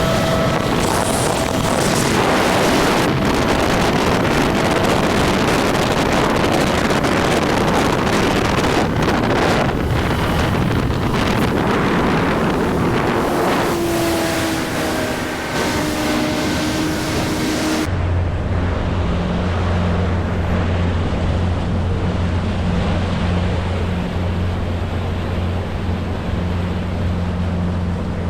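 Motorboat running across the lake, with heavy wind noise on the microphone and rushing water. About two-thirds of the way through the sound changes abruptly to a steady low engine hum.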